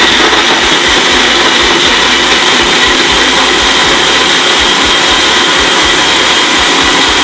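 Ninja Professional personal blender running, blending milk, ice cream and soaked dates and almonds into a milkshake: a loud, steady motor whir with a steady high whine.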